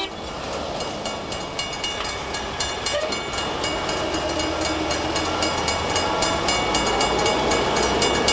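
Hi-rail track-repair truck rolling along the rails on its steel guide wheels, with fast, irregular clicking and rattling from wheels on track over a steady running rumble.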